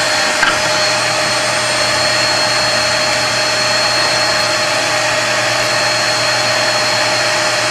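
CNC router spindle motor running steadily, a constant whine over a loud even rush of noise.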